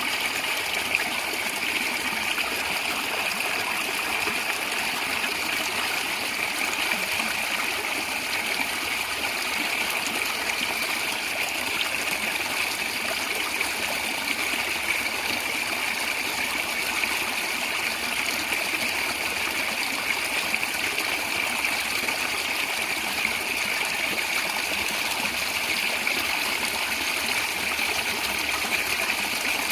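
A natural stream running and gurgling steadily over stones, a constant rush of water.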